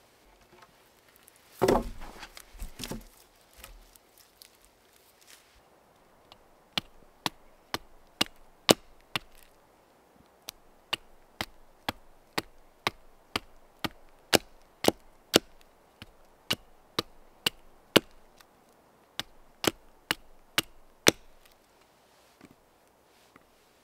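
A blade chopping chips off the end of a wooden stick to carve it to a point: sharp, even strikes about two a second for some fifteen seconds, with a couple of short pauses. A brief rustling burst comes about two seconds in, before the chopping.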